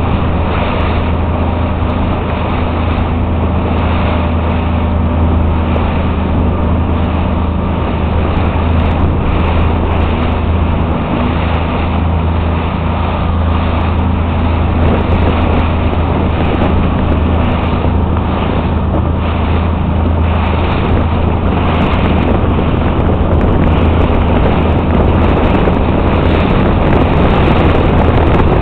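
Motorboat engine running steadily as a low, even drone, with wind noise on the microphone and rushing water over it.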